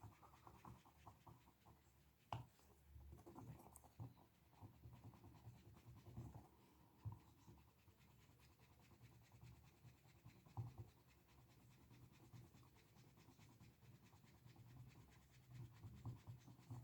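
Faint scratchy rubbing of an eraser scrubbing the oxidized silver-plated contacts of an amplifier switch clean, with a few small clicks of handling, the sharpest about two seconds in.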